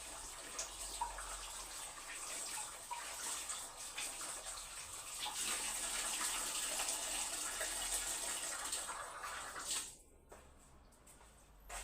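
Water running from a kitchen tap, a steady splashing stream with small clinks, getting a little louder partway through, then shut off abruptly near the end.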